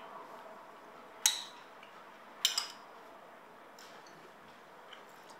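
Cutlery clinking against a dish twice, a little over a second apart, the second clink a quick double, over a faint steady room hum.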